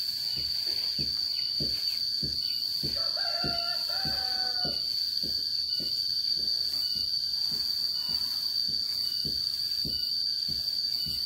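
A rooster crows once, about three seconds in, over a steady high-pitched drone of insects.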